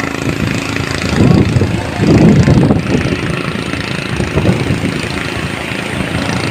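A small engine on a lit fishing boat running steadily across the water, with wind buffeting the microphone in loud gusts about a second in and again around two seconds in.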